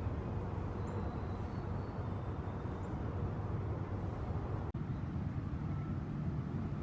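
Steady low outdoor rumble, like distant traffic, that cuts out for an instant about two-thirds of the way through.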